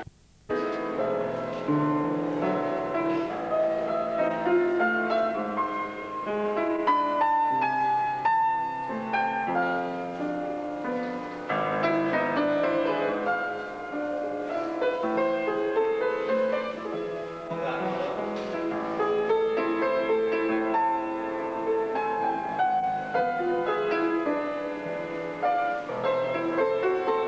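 Piano accompaniment for a ballet class, playing classical-style exercise music. The sound drops out for under a second just after the start, then the piano carries on.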